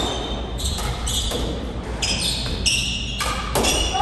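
Squash ball being struck by rackets and hitting the court walls in a doubles rally: a series of sharp, echoing knocks, with short high squeaks of court shoes on the hardwood floor between them.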